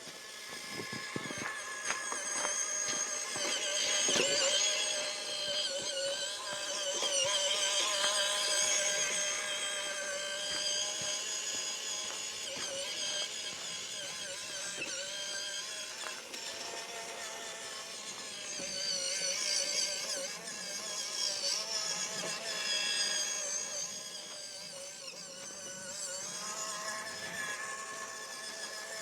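Small electric RC car (WPL C84 Suzuki Jimny) driving, its motor and gears whining with the pitch rising and falling as the throttle changes, with a few knocks in the first few seconds.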